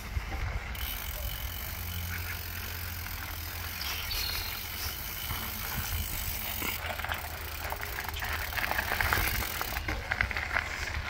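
Bicycle rolling along a dirt trail: tyres on dirt and rattles and clicks from the bike over bumps, with wind rumbling on the microphone. The rattling gets busier and louder in the last few seconds.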